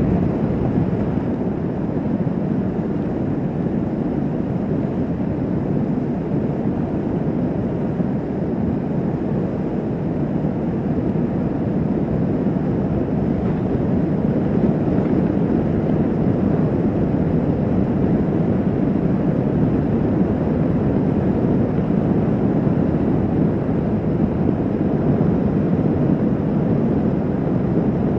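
Kawasaki Vulcan S 650 motorcycle cruising at steady highway speed: an even, unbroken rush of engine drone, wind and road noise that swells slightly partway through.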